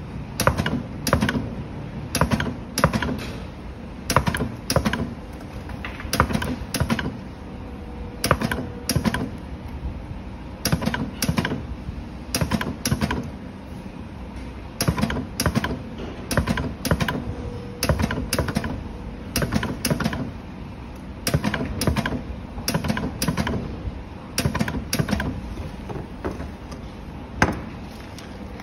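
Pneumatic battery spot welder firing its electrodes onto a metal connector strip over 18650 cells. The welds sound as sharp clicks in quick pairs and clusters, about one cluster a second, with short pauses as the pack is shifted to the next cells.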